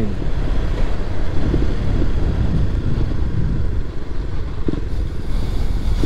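KTM Duke motorcycle's single-cylinder engine running as the bike slows from about 37 mph to a crawl, with wind noise on the microphone making a steady low rumble.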